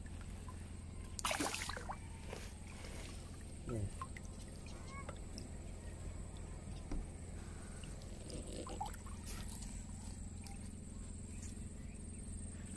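Water splashing and sloshing in a few short bursts, the strongest about a second and a half in, over a steady low hum.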